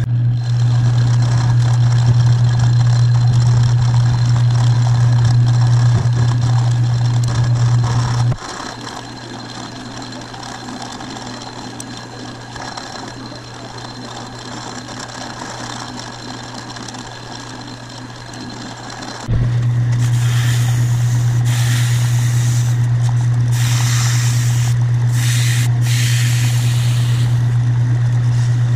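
Metal lathe running with a steady low hum while a small metal nose piece is turned. The hum is much quieter for about ten seconds in the middle. In the last third an abrasive cloth held against the spinning part rasps in uneven strokes.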